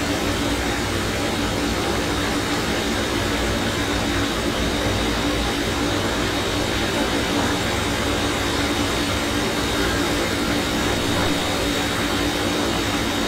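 Steady room noise: an even hiss with a constant low hum, unchanging throughout, like a fan or air conditioner running.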